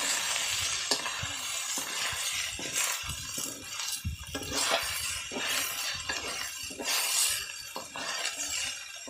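Metal spatula scraping and clinking against an iron kadai as rice is stirred, in irregular strokes.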